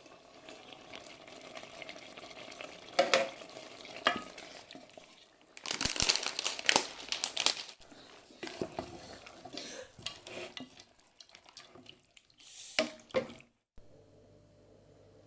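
Pasta and vegetables frying in a pan, stirred with a utensil that knocks and scrapes against the pan, busiest about six seconds in. Near the end the sound cuts off suddenly to a faint steady hum.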